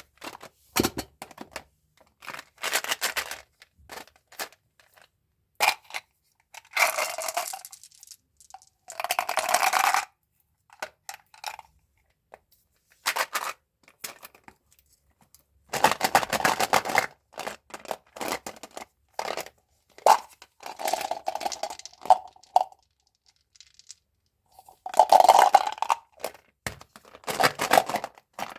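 Candy and gum packaging being torn open and crinkled by hand, in several bursts of a second or two, with sharp clicks and taps in between.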